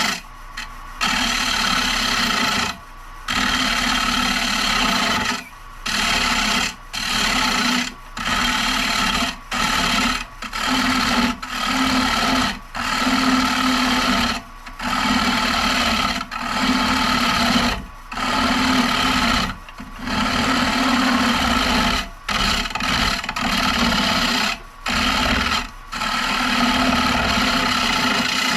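Carbide turning tool cutting a spinning maple bowl blank on a wood lathe: a rasping, scraping cut that comes in repeated passes of one to two seconds with short breaks between them as the tool is drawn across and lifted off the wood.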